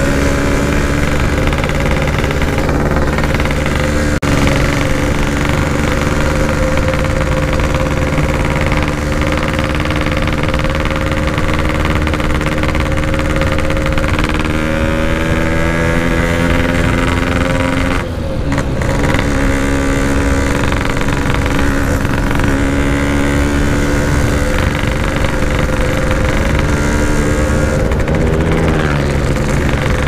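Yamaha RX-King's single-cylinder two-stroke engine running under way through a Standart Belek Packing Power aftermarket exhaust, its pitch slowly climbing, with a brief dip about two-thirds through and another near the end. Wind rumble underneath.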